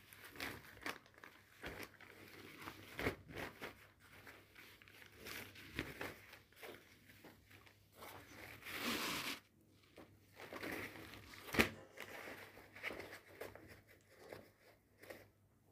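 Faint rustling and crinkling of a fabric Arctic Fox bag being handled and unfolded, with scattered light clicks and taps. A longer rustle comes about nine seconds in, and a sharp tap a little later.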